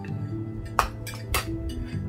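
Soft background music with held notes, and two sharp clinks of a metal spoon against ceramic tableware, a little under a second and about a second and a half in.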